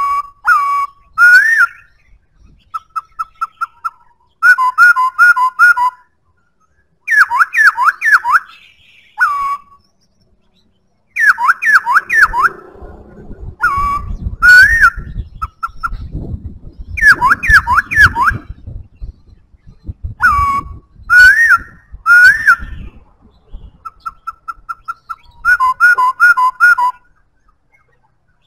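Black-throated laughingthrush singing: loud, clear whistled phrases of quick looping notes, each lasting a second or two and repeated after short pauses, with a run of short, even notes early on and again near the end.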